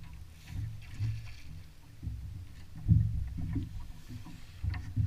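Irregular low thumps and knocks of water slapping against a bass boat's hull, the loudest about three seconds in, with a few faint ticks.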